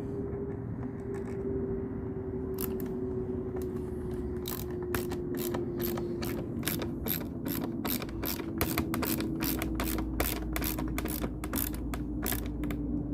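Hand ratchet tool clicking as it turns the headlight bezel screws: a few clicks at first, then a steady run of about four clicks a second, over a steady low hum that drifts slowly downward in pitch.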